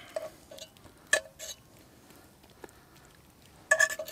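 Metal fork clinking and scraping against the inside of a cast iron dutch oven while picking out pulled pork. It comes as a few separate knocks, the loudest a little after a second in and a quick cluster near the end.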